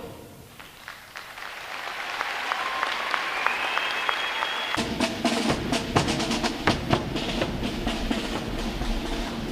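A band's drums beating a steady march cadence, faint at first and growing louder, with audience applause and fuller band music coming in about halfway.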